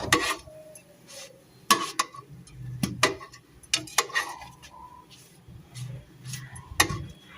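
Kitchen utensils knocking and clinking against a dish as fried brinjal slices are handled and turned, a few scattered sharp clinks with short pauses between them.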